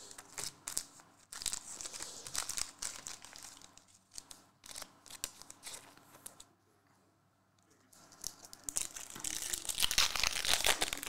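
Foil trading-card pack wrapper crinkling in bursts as it is handled, then torn open by hand, with a louder stretch of tearing and crinkling foil from about nine seconds in.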